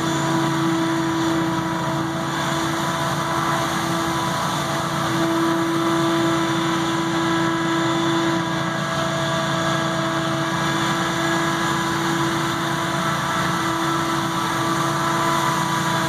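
SCAG Windstorm stand-on debris blower running, its engine and fan making a steady drone with a constant tone as it blows leaves and light snow across a lawn.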